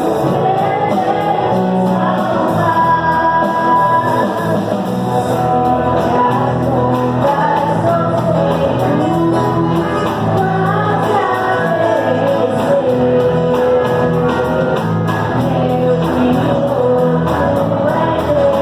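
Praise and worship music: singing over a full band accompaniment with a steady beat.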